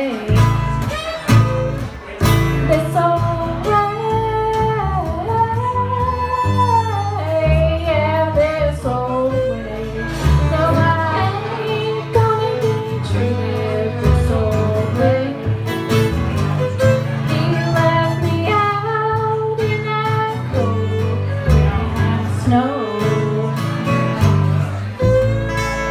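Live acoustic folk trio: a woman singing a melody while playing acoustic guitar, accompanied by violin and upright double bass.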